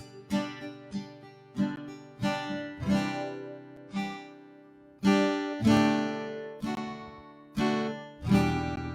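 Acoustic guitar strumming chords in a steady rhythm, each strum ringing out and fading, in an instrumental gap between sung lines of a worship song.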